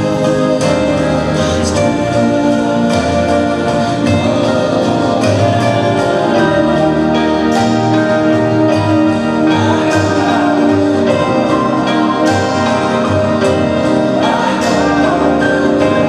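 A song playing steadily, with a singing voice over sustained instruments.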